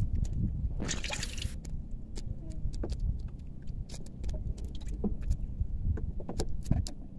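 Water sloshing and a keep net rustling as a hand works in the net over the side of a boat, with a short splash about a second in and scattered small knocks and clicks, over a low steady rumble.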